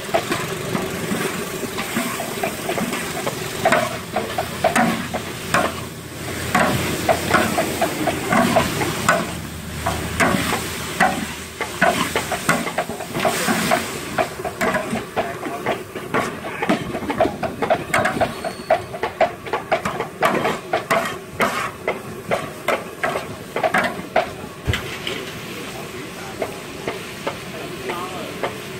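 Food sizzling in a pan while it is stirred, with a utensil scraping and clacking against the pan many times in quick, irregular strokes. The stirring thins out near the end.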